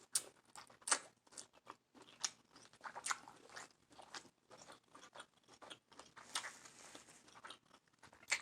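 Close-miked chewing of seafood boil food: soft, irregular wet smacks and mouth clicks.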